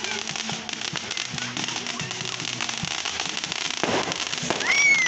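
Fireworks crackling, a dense run of small pops and crackles, with crowd voices underneath. Near the end a high whistle rises and then falls away.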